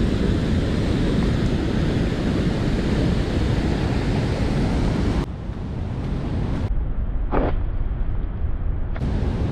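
Rushing creek water mixed with wind buffeting the microphone: a loud, steady rush, heaviest in the low end. About five seconds in the sound turns dull and muffled for a few seconds before clearing again.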